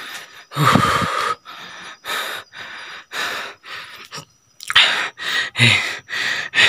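A person breathing hard and fast close to the microphone, about two loud breaths a second, with a short groan about a second in and a brief pause just past the middle.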